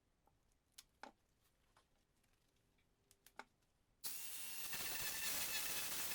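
A few light handling clicks, then about four seconds in a Merlin2 mini angle grinder fitted with a sanding disc switches on and runs steadily with a high whine.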